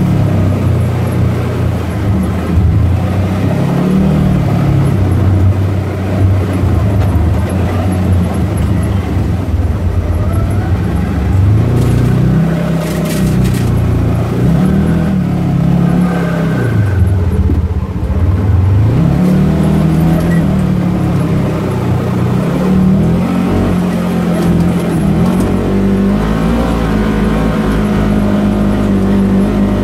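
Polaris General side-by-side's engine, heard from the cab, revving up and easing off again and again as it climbs and drops over dirt mounds.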